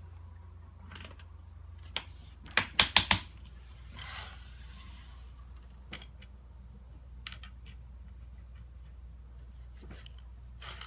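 Plastic self-leveling tile clips and wedges clicking as they are pushed into place between ceramic tiles: a quick run of four sharp clicks about three seconds in, then scattered single ticks.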